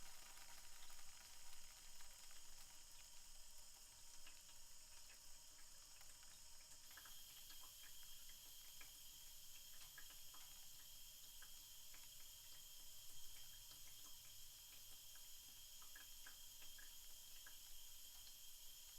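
Faint water trickling with scattered small drips: a toilet cistern refilling after the flush.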